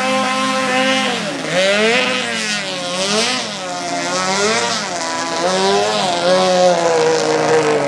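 Racing motorboat engine running at high revs. Its pitch holds steady, then dips about a second and a half in and swings up and down roughly once a second.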